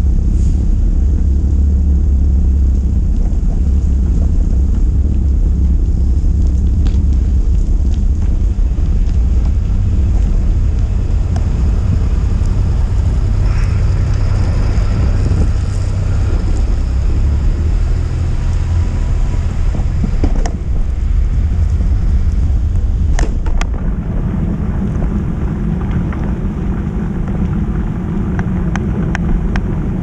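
Snowstorm wind buffeting the microphone of an action camera on a moving bicycle: a loud, steady low rumble, with a few faint clicks in the second half.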